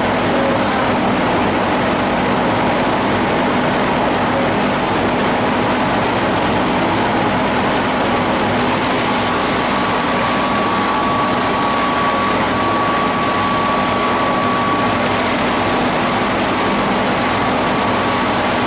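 8 ft hydraulic spindle veneer-peeling lathe running steadily as it peels face veneer from a turning log: an unbroken dense mechanical noise with a low hum and a thin higher whine held over it.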